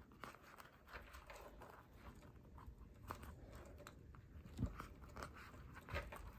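Faint rustling with scattered soft clicks of hand crochet work: a crochet hook and polyester nautical cord being worked through the edge of a leather bag panel.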